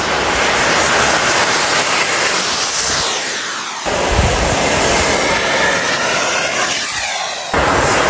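Radio-controlled J-10 model jet flying past: a loud rushing jet whine that drops in pitch as it goes by. This happens twice, and each pass breaks off sharply.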